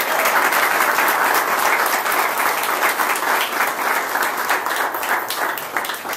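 Audience applauding steadily, the clapping thinning out near the end.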